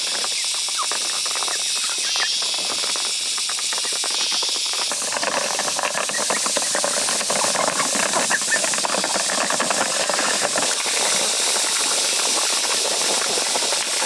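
Steady hissing noise that turns rougher and crackly about five seconds in.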